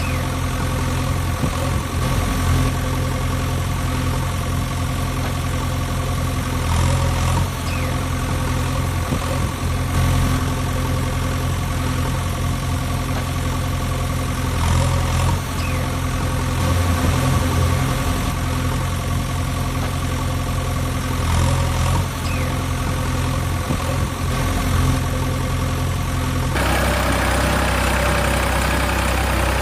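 Engine running steadily at idle. Near the end it changes abruptly to a rougher, noisier engine sound.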